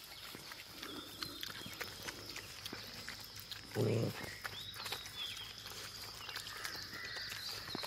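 Several puppies eating soft rice mash off newspaper: wet chewing, smacking and lapping clicks. There is a brief, louder low sound about four seconds in.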